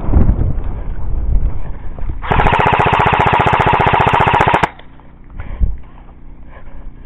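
Airsoft rifle firing one full-auto burst of about two seconds, starting a couple of seconds in and cutting off abruptly. Before it there is wind rumble on the microphone.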